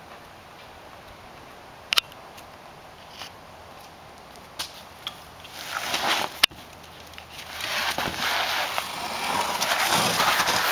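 Rustling and scuffing as a fabric-covered box spring with a wooden frame is lifted and carried. The sound grows louder from about halfway through, with a sharp knock about two seconds in.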